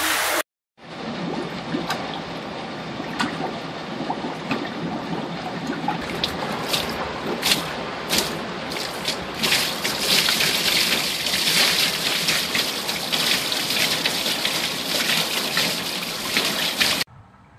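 Water spilling over the rim of an overflowing toilet bowl and running onto the floor, a steady trickling and splashing that grows louder about ten seconds in. It breaks off suddenly near the end.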